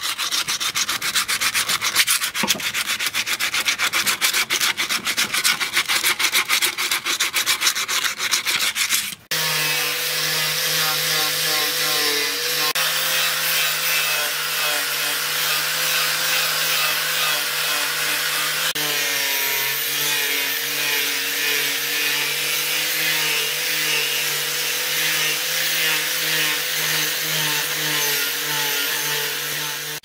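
Rapid back-and-forth rubbing strokes of abrasive worked by hand over a machete's wooden handle. About nine seconds in, this gives way to a handheld angle grinder with a sanding disc, its motor running at a steady pitch as it grinds the steel blade.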